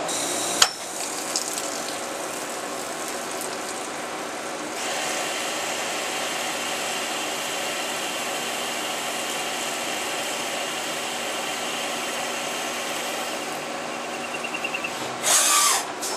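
Multi-axis CNC turning-milling center running, a steady machine drone with several fixed whining tones. There is a sharp click about half a second in, a higher-pitched tone joins at about five seconds, and a loud burst of noise comes near the end.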